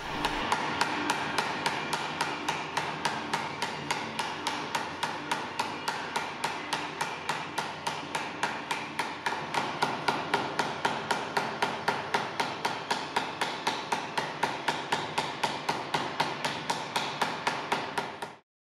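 A flat smoothing hammer taps rapidly and evenly on a 3D-printed plastic mold, which is sandwiched over sheet metal on an anvil, driving a logo relief into the metal. There are about four to five light strikes a second over a steady ring, and they stop abruptly near the end.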